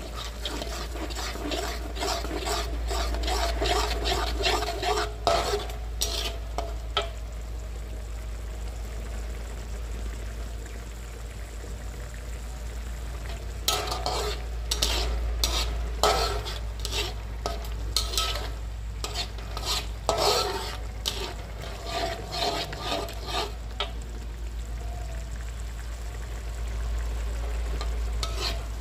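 Metal spatula scraping and stirring chili sambal paste in a sizzling wok, in two spells of quick strokes with a few seconds of plain sizzling between them. The ground chili, tomato, shallot and garlic paste is being fried until cooked.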